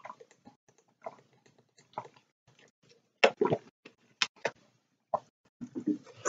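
A person drinking from a plastic drink bottle: soft swallows about once a second, then sharp plastic clicks and crackles about three seconds in as the cap is screwed back on.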